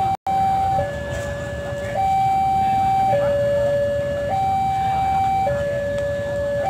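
Railway level-crossing warning alarm sounding a two-tone hi-lo signal, each tone held a little over a second, warning that a train is approaching. Market bustle sits underneath, and the sound cuts out for an instant near the start.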